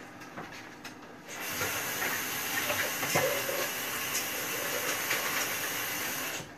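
Kitchen tap turned on about a second and a half in, water running steadily into the sink with a hiss to rinse food, then shut off suddenly just before the end.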